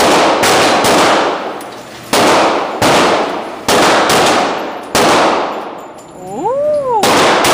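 Handgun shots at a gun range, .357 Magnum revolver fire among them: about eight sharp, loud reports at irregular intervals, each trailing off in a long echo.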